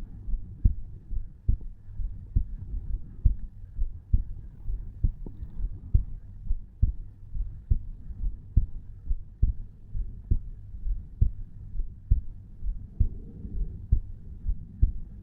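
A resting human heartbeat recorded at the chest over the tricuspid valve: a steady, even rhythm of low lub-dub thuds at about 70 beats a minute.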